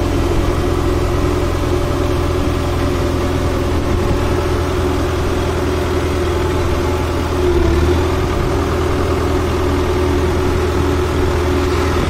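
Diesel engine of a Case vibratory road roller running steadily at a modest throttle as the roller drives slowly forward, its drum vibration off, heard from the operator's seat. About seven and a half seconds in, the engine note swells briefly in level and pitch, then settles.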